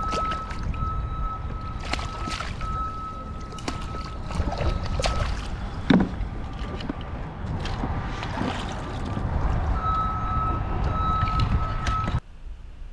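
Wind buffeting the microphone and water sloshing around a fishing kayak while a fish is played and netted. Scattered clicks and knocks of rod, reel and landing net come through, with a louder thump about halfway, and a thin steady tone comes and goes. The sound cuts off suddenly near the end.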